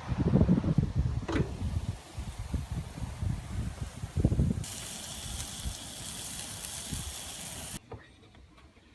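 Wind gusting and buffeting the microphone in heavy low rumbles, then an even high hiss for about three seconds that cuts off suddenly near the end.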